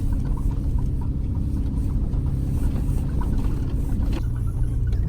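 Tour van's engine and road rumble, a steady low drone; its note shifts about four seconds in.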